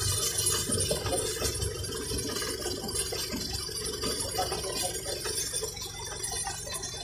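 Boat engine running steadily with the boat under way, with a constant hum over a low rumble and a hiss of water and wind.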